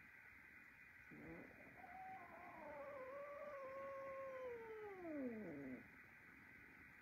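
A cat's single long drawn-out meow, about four seconds long, holding its pitch and then sliding down at the end.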